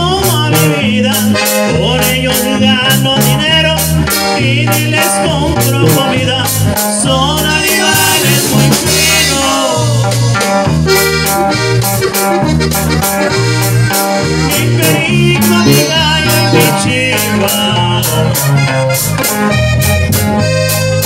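Norteño band playing an instrumental passage: accordion carrying a wavering, ornamented melody over electric bass, bajo sexto and a steady drum beat. A cymbal crash comes about eight seconds in.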